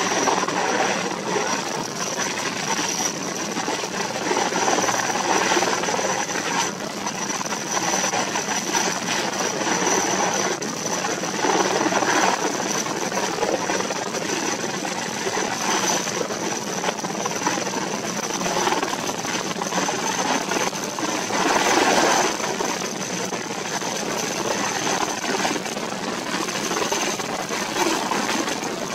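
Erickson S-64 Air-Crane heavy-lift helicopter hovering low over water, its twin turbine engines and rotor running with a steady high whine over a roar that swells at times. It is drawing water up through its dangling snorkel hose to refill its tank.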